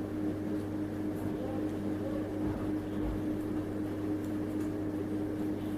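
A steady low hum with a constant pitch, room background noise of a running appliance, with a soft low bump about three seconds in.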